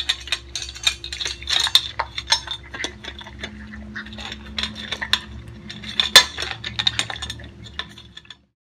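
Two miniature schnauzer puppies eating from stainless steel bowls: rapid, irregular clinks and rattles of food and muzzles against the metal bowls in their wire stand, the loudest clink a little after six seconds. The sound cuts off suddenly shortly before the end.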